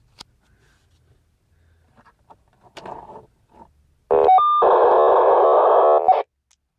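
Short burst of an unidentified repeating signal from an ICOM IC-2200H VHF transceiver's speaker: a few quick stepped beeps, then about two seconds of dense, buzzing warble that cuts off abruptly.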